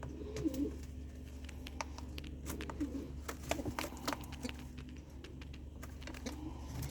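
Light rustling and scattered small clicks from handling inside a pigeon nest box, over a steady low hum.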